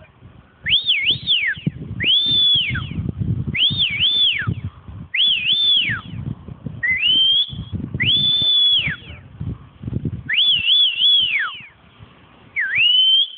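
Whistling: about eight loud whistled phrases, each about a second long, sliding up to a high note, wavering and falling away, with irregular low rumbling noise beneath.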